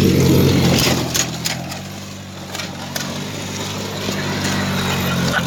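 Lawn mower engine powering a homemade go-kart, running loudly for about the first second, then settling to a steadier, lower run, with scattered rattles and clicks from the machine.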